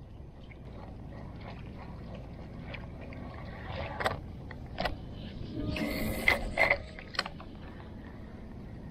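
Fishing reel being cranked to retrieve a topwater lure, its gears ticking steadily. A few sharp clicks come through, and there is a short louder rattle about six seconds in.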